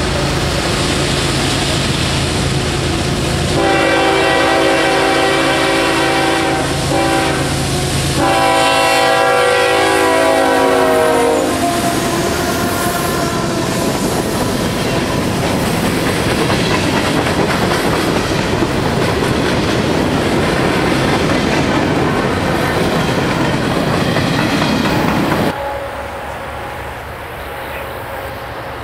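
A CSX diesel freight locomotive approaches with its engine running, then sounds two long blasts of its multi-note air horn, the second dropping slightly in pitch as it passes. After that the loaded train of covered hopper cars rolls through with steady wheel-on-rail clatter. Near the end the sound drops abruptly to a much quieter level.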